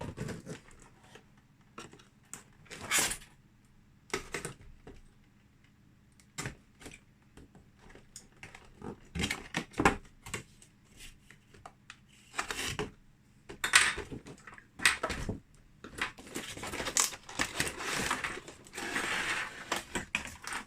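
Cardboard box and plastic packaging of a die-cast model car being worked apart by hand: scattered clicks, scrapes and crinkling rustles with pauses between, the packaging resisting coming apart.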